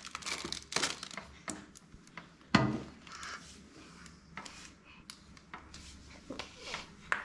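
Scattered light knocks, taps and rustling of household objects being handled, with one much louder knock about two and a half seconds in.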